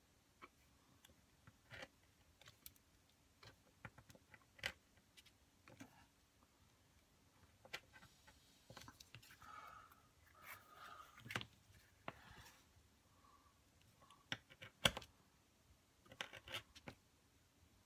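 Small scissors snipping around the edge of a leather cutout: faint, scattered snips and clicks at irregular intervals, with a brief rustle of the leather being handled about ten seconds in.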